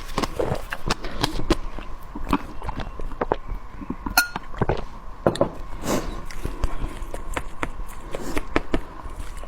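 Close-miked eating sounds: a person chewing and biting food, with many short irregular crunches and clicks and a few clinks of a utensil against a dish.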